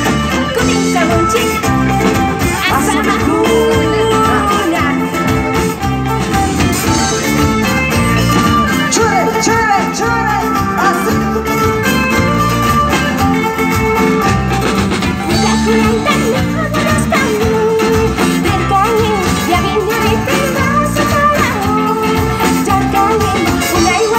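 Live band playing through a PA, with guitars, drums and a singer over a steady beat.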